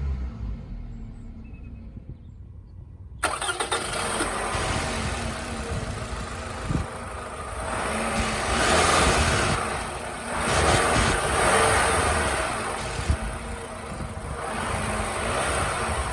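Toyota Camry's 2.4-litre 2AZ-FE four-cylinder engine: it sits at a low, quiet rumble for about three seconds, then the sound abruptly returns much louder with the engine running, swelling and easing three times in the later part.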